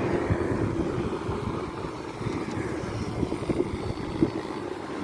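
An engine running steadily, with a rough, uneven texture.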